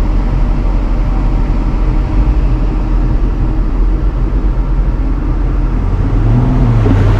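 Jeep engine running under load as it drives into a mud hole, the engine note climbing near the end.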